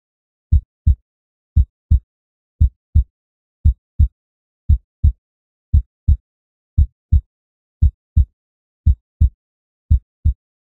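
Heartbeat sound effect: a slow, steady double thump, lub-dub, repeating about once a second.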